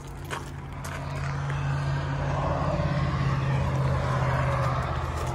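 A motor vehicle engine running with a steady low hum, swelling louder over the first couple of seconds and then holding.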